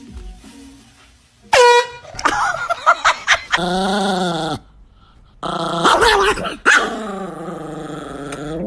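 A dog vocalizing: a short sharp yelp about one and a half seconds in, then several long, wavering, drawn-out calls.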